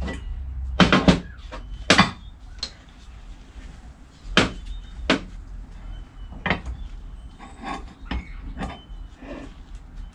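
Steel V-blocks and pieces of mild steel clunking and clinking on a workbench as they are set in place and a gearbox clutch-pack shaft is handled: a series of sharp, irregularly spaced metal knocks.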